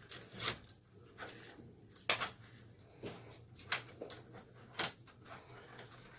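A newly installed deadbolt and door knob being tested: a series of sharp metal clicks and clacks as the bolt and latch are worked, the loudest about two seconds in.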